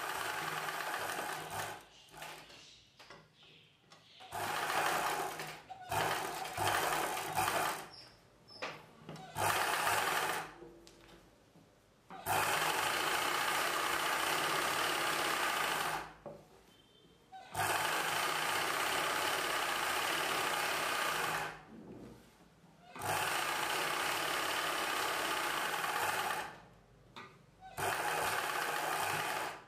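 Sewing machine stitching in stop-start runs, each lasting a couple of seconds or a few seconds, with short pauses as the fabric is repositioned; the longer runs come in the second half.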